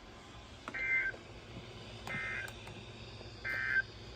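Three short bursts of the Emergency Alert System's SAME digital data tones, a warbling two-tone chirp each about a third of a second long and spaced about 1.3 s apart: the end-of-message signal that closes the severe thunderstorm warning broadcast.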